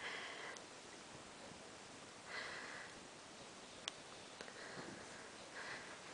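Faint sniffing breaths through the nose, three of them two to three seconds apart, with a single sharp click a little before the four-second mark.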